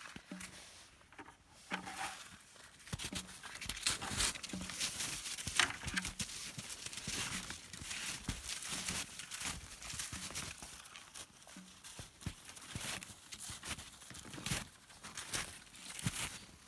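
Footsteps crunching and rustling over rough woodland ground, in an uneven walking rhythm.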